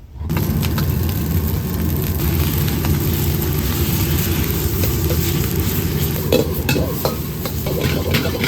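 Food frying in a wok: steady sizzling over a low rumble that starts suddenly, with spatula clicks and scrapes becoming more frequent in the second half as the food is stirred.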